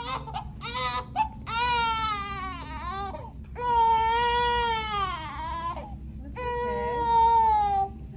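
A young infant, about eight weeks old, crying: a few short sobs, then three long, drawn-out wails of about two seconds each.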